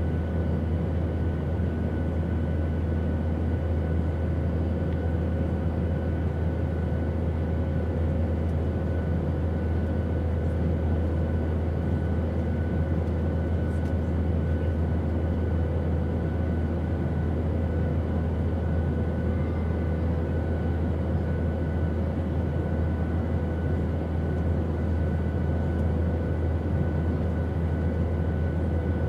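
Airplane in flight: a steady, unchanging low engine drone with a rushing hiss above it and a few faint constant higher hums.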